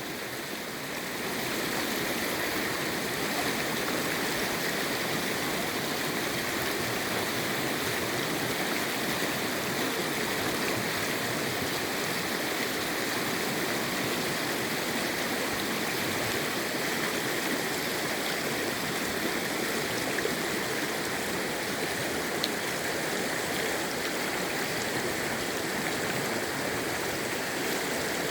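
Mountain stream rushing and splashing over rocks, recorded close up: a steady, even water sound that swells in the first second or two and then holds.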